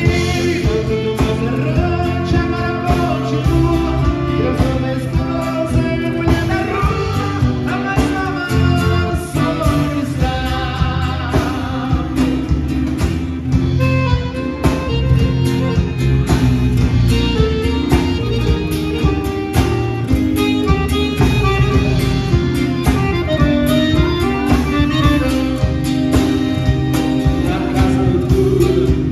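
Music with singing over plucked guitar and a steady beat.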